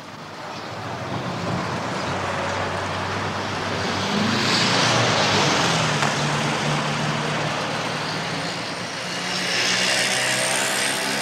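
Motor vehicle noise: a steady engine hum under a wide rushing sound that swells twice, as when vehicles pass.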